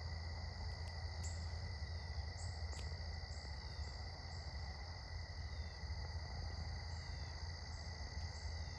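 Crickets chirping in a steady evening chorus: a continuous high trill with short, higher chirps repeating about every half second over it.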